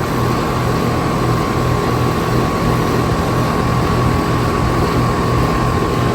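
2007 Carrier central air conditioner condensing unit running just after starting up. Its scroll compressor gives a low, evenly pulsing hum, and the condenser fan motor gives a steady rush of air, with a steady whine over both.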